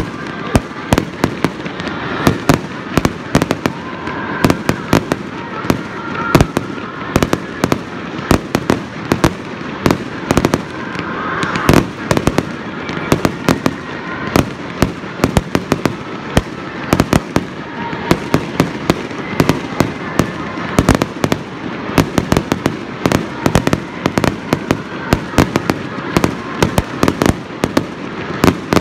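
Fireworks display: a dense, irregular string of sharp bangs from aerial shells and comets bursting, several reports a second without a break.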